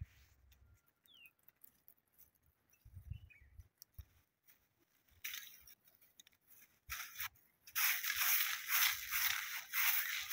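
Short stick broom sweeping bare earth: a few scattered scrapes and clicks, then from near the end a steady run of scratchy strokes, about three a second.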